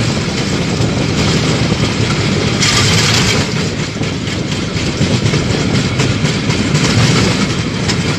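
Railway inspection trolley running along the track: a steady rumble and rattle of its wheels on the rails, with a brief burst of hiss about three seconds in.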